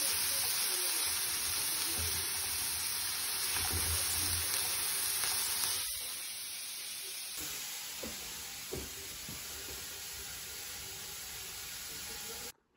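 Sliced mushrooms sizzling in oil in a frying pan: a steady frying hiss that grows quieter after about seven seconds and cuts off suddenly near the end.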